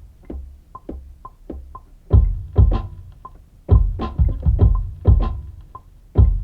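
Instrumental beat: sparse short percussive notes, joined about two seconds in by heavy kick-drum hits in a repeating pattern.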